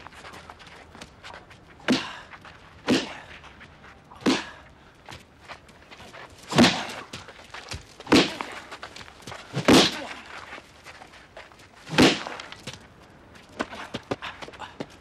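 Heavy punch impacts as fists land on a body, seven separate blows one to two seconds apart, then a run of quicker, lighter taps near the end.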